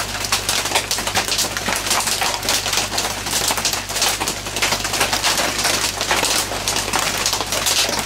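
Heavy rain on a tin shed roof: a dense, continuous popping patter of many small hits, over a steady low electrical hum.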